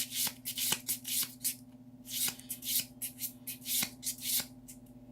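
Magic: The Gathering trading cards being handled and flicked through, a quick run of short papery swishes and small snaps, about three or four a second, with a brief pause about halfway.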